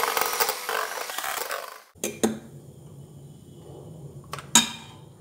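Electric hand mixer running, its steel beaters whisking egg whites and yolks in a stainless steel bowl, then switched off about two seconds in. A few sharp metallic clinks follow, the beaters knocking against the bowl.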